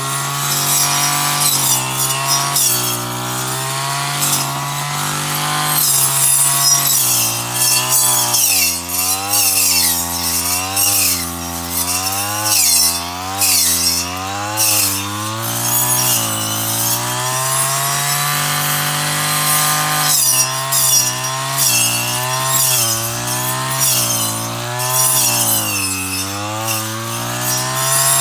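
Engine-powered brush cutter running hard while cutting grass, its engine note dipping and recovering about once a second as the blade sweeps through the growth, with the swish and crackle of cut grass over it.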